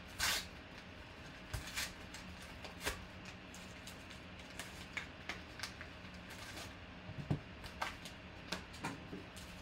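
Crinkling and rustling of a padded paper envelope being pulled open by hand and the cards in hard plastic holders slid out, in short scattered bursts.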